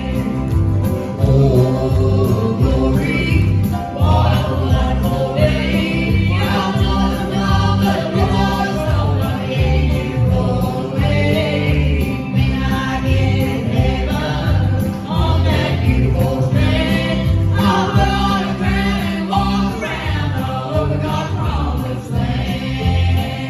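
Live gospel music: a vocal group singing in harmony over instrumental accompaniment with a steady low bass line.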